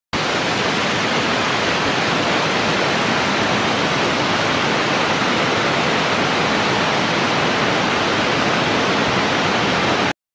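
Steady rushing-water sound effect standing for backflow in the pipeline, an even hiss that starts and stops abruptly.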